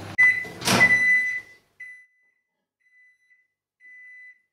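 Microwave oven's running hum stops right at the start as its heating cycle ends, followed by its high end-of-cycle beeps and a loud clunk of the door being opened less than a second in. Fainter beeps at the same pitch come later, the last one near the end.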